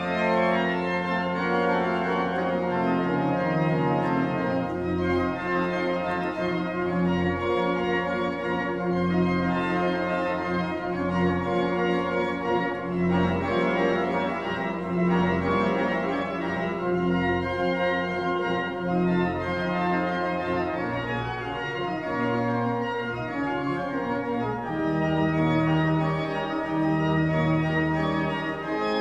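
Pipe organ playing a piece: full sustained chords over a bass line that moves from note to note.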